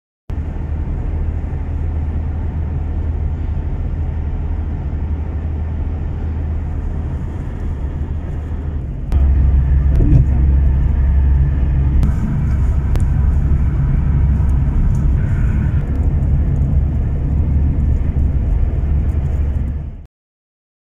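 Steady low engine and road rumble inside a moving taxi's cabin, growing louder about nine seconds in. It cuts off about a second before the end.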